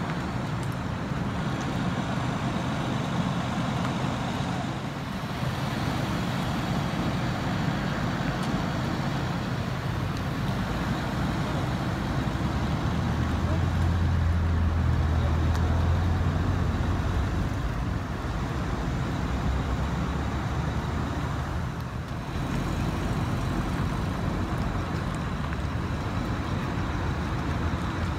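Road traffic noise: vehicles passing and engines running, a continuous rumble with a louder low engine drone about halfway through.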